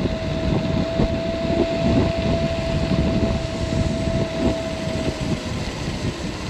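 Wind buffeting the microphone while riding a Caroma P1 electric scooter, with a steady single-pitch whine from its electric motor that fades out near the end.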